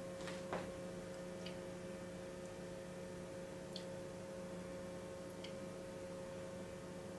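Fan oven running with a quiet, steady hum, with a few faint scattered clicks over it.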